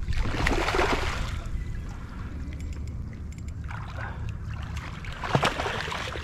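A hooked redfish thrashing and splashing at the water's surface beside a kayak, in three bursts: near the start, about four seconds in, and near the end. A steady low rumble runs underneath.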